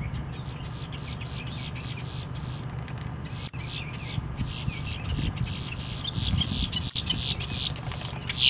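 Boat-tailed grackle calling: a long run of dry, clicking notes, several a second, growing louder toward the end.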